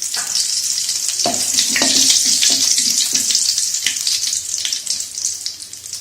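Curry leaves hitting hot oil with mustard seeds in a pan, sizzling and crackling loudly; the hiss swells in the first couple of seconds and then eases off.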